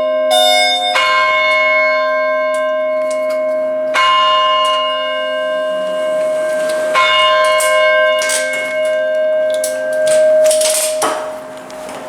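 Tower bells ringing: fresh strokes about every three seconds, each note hanging on and overlapping the next, fading away near the end. A few sharp clicks come just before the fade.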